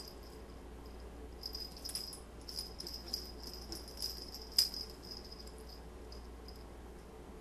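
A small bell jingling in quick, uneven shakes as two cats wrestle, with soft rustling and a few light clicks. The sharpest click comes a little past halfway.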